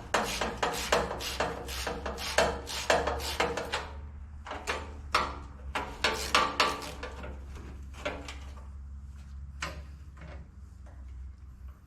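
Repeated metal knocks and clunks as a stuck steering wheel is worked loose on its steering shaft, quick and fairly regular at first, then sparser and fainter. A steady low hum runs underneath.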